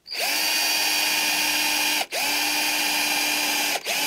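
Cordless drill running at a steady speed, boring holes through a fibreglass front spoiler lip. It runs in two stretches of about two seconds each, with a brief stop between them.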